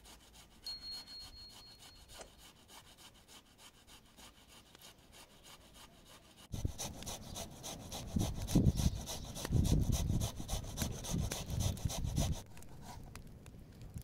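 Faint rubbing of hands washing vegetables in a plastic bowl, then about six seconds in a sudden louder stretch of a wood fire burning in a small sheet-metal stove: crackling over a low rumble, easing off near the end.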